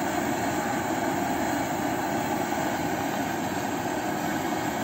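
Steady rushing of a high-pressure gas burner firing under a large aluminium cooking pot.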